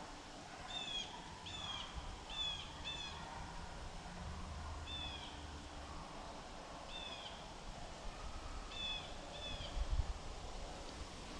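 A bird calling: about nine short, high, downward-slurred notes, four in quick succession at first and then singly and in a pair, over faint background noise.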